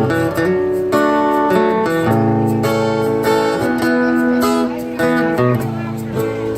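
Acoustic guitar strumming chords in an instrumental break between sung verses.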